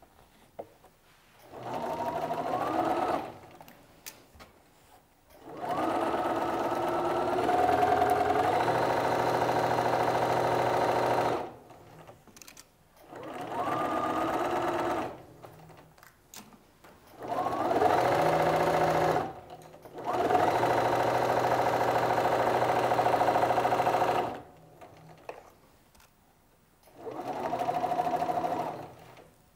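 Bernina electronic sewing machine stitching in six separate runs, the longest about six seconds. Each run starts with a rising whine as the motor speeds up, holds steady, then stops. There are faint clicks in the pauses between runs.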